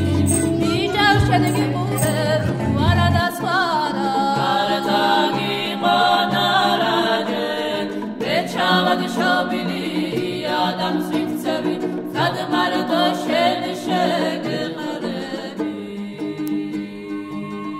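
Background music: a song with singing over a low sustained drone, fading out near the end.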